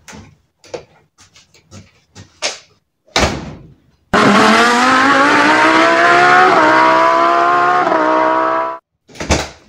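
A few light footsteps and knocks, then the front door shutting with a thud about three seconds in. About a second later a car engine starts up suddenly, accelerating with its pitch rising steadily, and cuts off abruptly about five seconds later.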